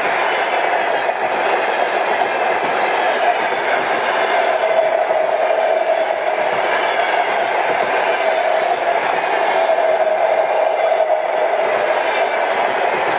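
Passenger coaches of a long-distance train rolling past at speed close by: a loud, steady rolling noise of steel wheels on rail, with a steady ringing tone running through it.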